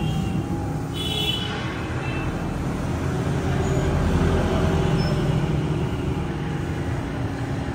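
Heavy machinery or an engine running with a steady low rumble, growing a little louder around the middle.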